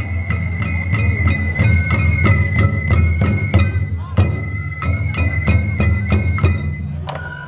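Japanese festival music (matsuri bayashi): a high flute melody that steps between notes, over drum beats and sharp gong strikes at about three to four a second.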